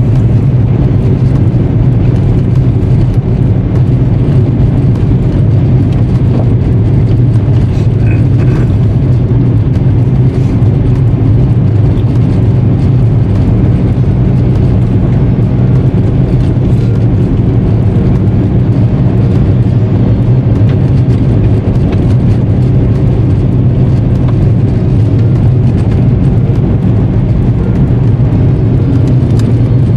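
Steady in-cabin drone of a 2002 Volkswagen Jetta TDI cruising down the road. Its 1.9-litre four-cylinder turbodiesel and the road noise make an even low hum that does not change.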